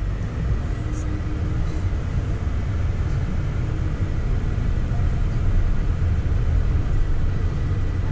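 Steady low rumble of a car driving at low speed, with road and engine noise heard from inside the cabin.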